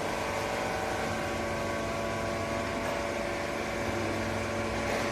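Vertical baler's hydraulic power unit running steadily: an even machine hum with several steady tones.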